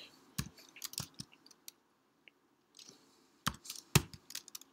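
Typing on a computer keyboard: a short run of key clicks about half a second in, a pause, then a second short run of clicks near the end.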